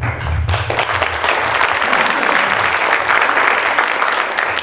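Audience applauding: many hands clapping in a dense, even patter that breaks out all at once.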